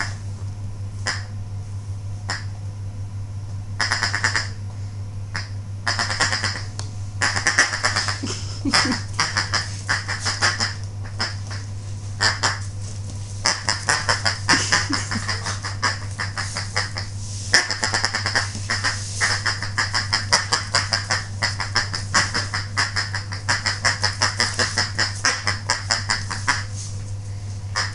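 A dog's squeaky toy squeaking over and over in quick runs of short squeaks, with pauses between runs, as a small dog tugs and bites at it.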